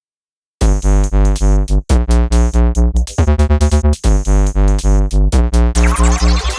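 Electronic background music with a synthesizer and a steady drum-machine beat, starting about half a second in, with short breaks and a rising sweep near the end.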